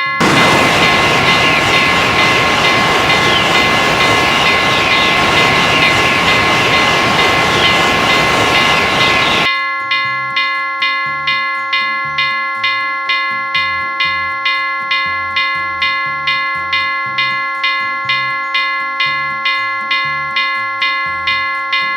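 Railroad crossing bell ringing steadily about twice a second as a train passes through the crossing. The train's loud rushing noise covers the first nine seconds or so, then cuts off suddenly, leaving the bell ringing on alone.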